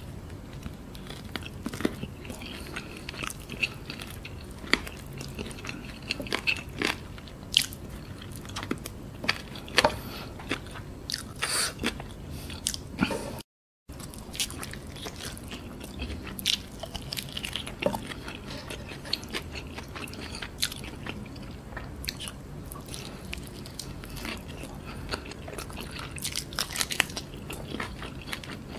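A person chewing and biting fried chicken, with many short, sharp mouth clicks and bites. The sound cuts out briefly about halfway through.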